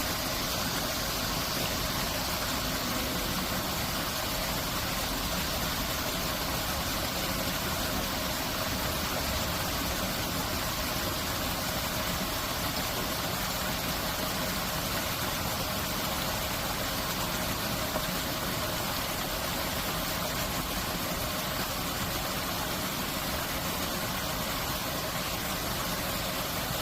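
Stream water rushing steadily through the stone arches of the Hwahongmun sluice gate, an even, unbroken roar.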